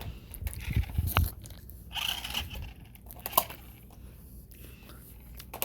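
Scattered plastic knocks, clicks and scrapes of a toy car being handled and pushed about by a baby; no motor runs.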